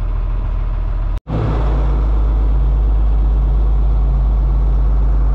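Tractor engine running steadily under a low, even drone, cut off for an instant about a second in and then running on.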